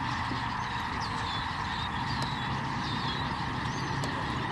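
Steady rushing noise with a low hum underneath, and several faint, high, short bird chirps scattered through it.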